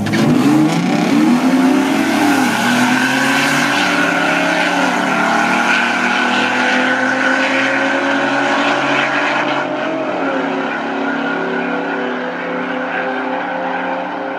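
A bolt-on 3.7L V6 Mustang and a supercharged 4.8L V8 Silverado launching at full throttle down a drag strip. The engines rise in pitch and drop back at each gear change, then fade as the cars run away down the track.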